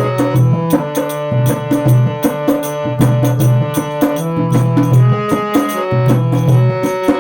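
Instrumental interlude of a Hindi devotional bhajan: tabla-style hand drums keep a steady rhythm under a melodic instrument playing held notes, with no singing.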